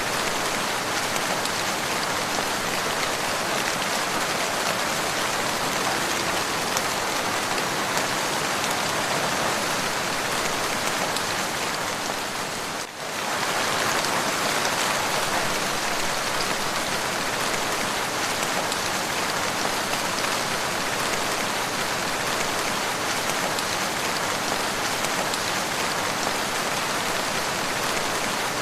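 Steady, even rainfall, a dense hiss of drops with no thunder, dipping briefly for a moment about halfway through.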